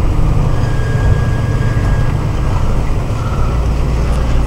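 Engine of a 1978 GMC motorhome, an Oldsmobile V8, running steadily as the vehicle is driven slowly, heard from inside the cab as a low drone. Its note shifts lower about three seconds in.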